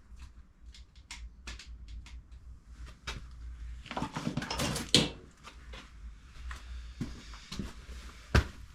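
Screwdriver working at the old sealing washer on a motorcycle sump drain plug: light metal clicks and scrapes, a scraping stretch about four seconds in that ends in a loud knock, and another sharp knock near the end.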